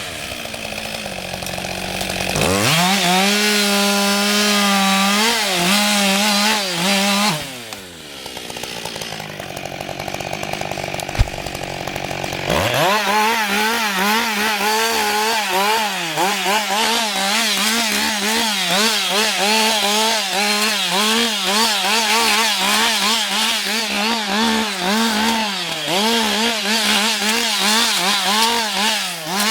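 Husqvarna 560 XP two-stroke chainsaw revved to full throttle and cutting wood, its pitch wavering under load. It drops back to idle for a few seconds, with one sharp click, then revs up again and carries on cutting.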